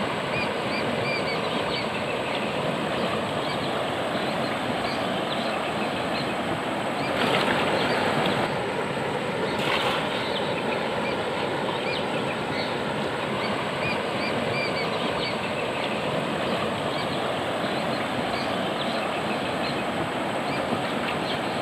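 River water flowing steadily over rocks. Partway through comes a louder rush and splash as a thrown cast net lands on the water.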